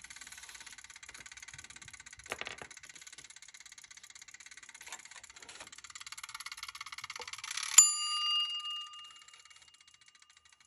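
A single bell-like ding about eight seconds in, a sharp strike that rings on in several clear tones and dies away within a second or so. A short light knock sounds about two seconds in.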